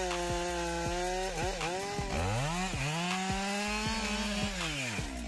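Two-stroke gas chainsaw running at full throttle while cutting into a standing tree trunk. Its engine note holds high, dips and wavers under load about a second and a half in, climbs back and holds, then drops away near the end.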